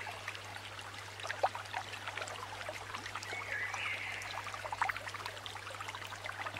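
Water trickling and bubbling, with many small drips, over a steady low hum.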